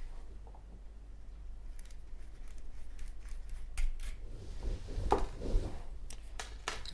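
Quiet handling of a Zippo windproof lighter: a few light, scattered metallic clicks and scrapes as the insert is worked to remove the flint.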